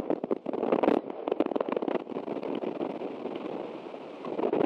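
Dense crackling and tapping of rain on the osprey nest camera's microphone, mixed with rustling as a young osprey flaps its wings on the stick nest. Louder in the first second and again near the end.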